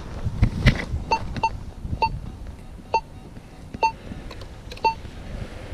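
AKA Signum MFD metal detector giving six short beeps at one steady pitch, roughly a second apart, after two dull knocks.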